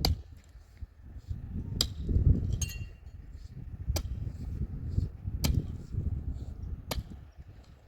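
Five sharp knocks, one about every one and a half seconds, over a low rumble.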